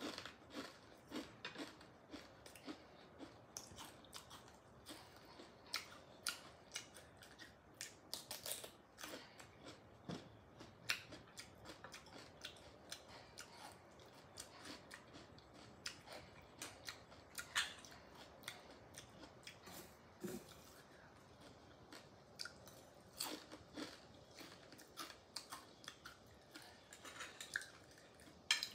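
Close mouth sounds of someone chewing steamed oysters, with many short, irregular clicks and the scrape of a metal spoon against oyster shell.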